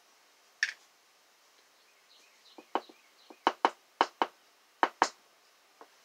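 A series of small, sharp clicks and taps from small brass lock pins and the lock plug being handled: one click just under a second in, then about nine quick clicks in the middle of the stretch.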